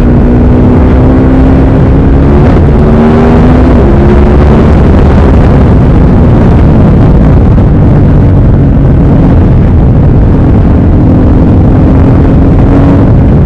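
Ducati Supersport S's 937 cc L-twin engine pulling under acceleration. Its pitch climbs and steps down at upshifts about two and a half and four seconds in, holds steadier, then climbs again before another shift near the end. Heavy wind buffeting on the microphone throughout.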